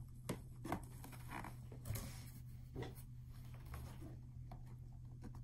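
Faint handling noises of a cardboard humidor box being worked open by hand: a few light taps, scrapes and rustles, scattered and irregular, over a steady low hum.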